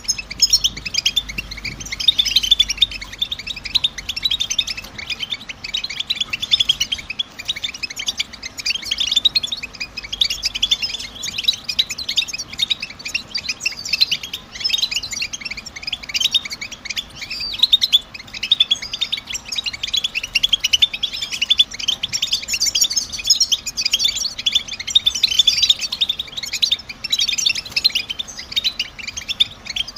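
European goldfinch twittering: a rapid, unbroken stream of high chattering call notes, the kind of recording played to a caged goldfinch to get it singing.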